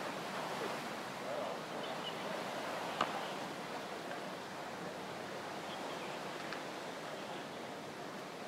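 Steady outdoor waterfront ambience: a continuous wash of sea waves with a single sharp click about three seconds in.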